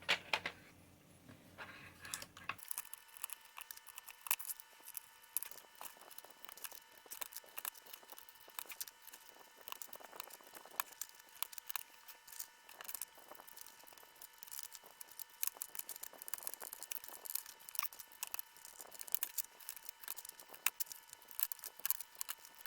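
Plastic keycaps being handled and pressed onto Cherry MX keyboard switches: a steady stream of small, irregular clicks and rattles.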